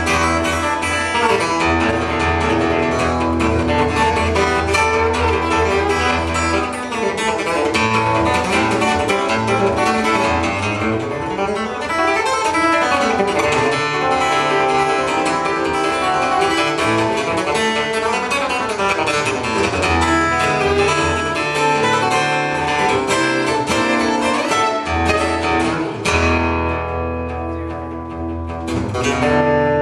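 Solo fingerstyle acoustic guitar in a country chicken-pickin' style: quick picked melody runs over a steady bass. Partway through there are a couple of notes that slide down and back up the neck, and it goes softer a few seconds before the end, then swells again.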